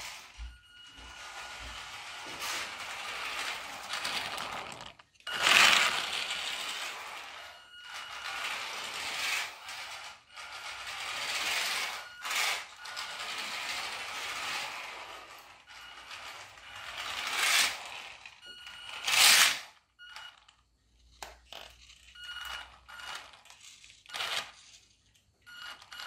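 Small scavenged brushed electric motor and gears of a toy car converted to radio control, whirring in bursts of a second or two as the throttle is worked, with a faint high whine. Its hard plastic wheels rattle and scrape over a wooden floor. In the last few seconds the bursts become short and choppy.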